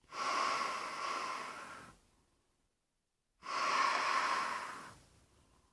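Breathing through a rubber GP-5 gas mask: two long, rasping breaths a second and a half apart.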